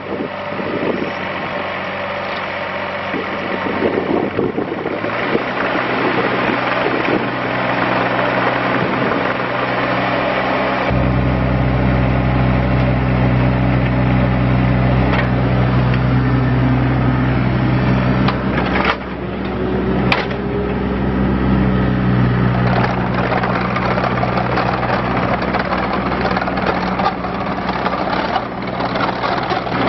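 John Deere 27C ZTS mini excavator's diesel engine running while the machine works its hydraulics and moves on rubber tracks. The engine note thickens about five seconds in and grows louder and deeper around eleven seconds as it takes load. It dips briefly near nineteen seconds, with a single click and a short rising whine just after.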